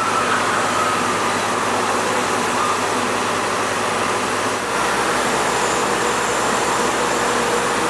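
Steady background noise with a faint mechanical hum; the low rumble shifts a little about two-thirds of the way through.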